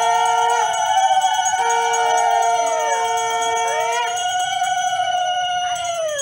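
A brass puja hand bell rung continuously, its ringing tones wavering up and down as it is swung, until it cuts off abruptly near the end.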